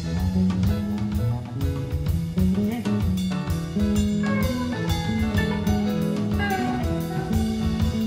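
Live band playing an instrumental passage: a drum kit keeping a steady beat of drum and cymbal hits under held bass notes, with a lead line whose notes slide down in pitch from about halfway through.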